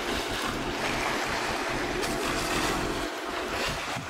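Steady rush of sea water and wind around a sailboat under way, with wind buffeting the microphone.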